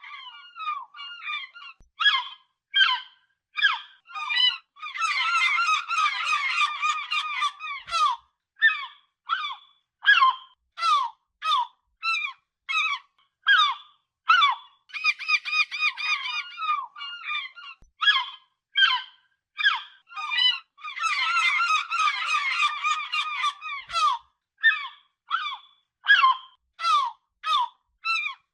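Gulls calling: short, sharp, high cries repeated about one to two a second. Three times, around five, fifteen and twenty-one seconds in, the cries run together into a fast, dense series for a few seconds.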